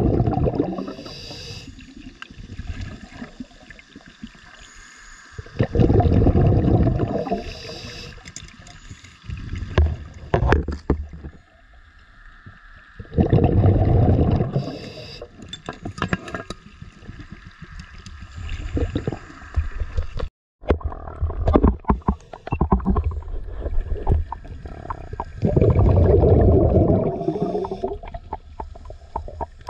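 Scuba divers breathing through regulators underwater: each exhalation sends a burst of bubbling rumble past the camera, four loud bursts several seconds apart, with faint crackling and clicks between breaths.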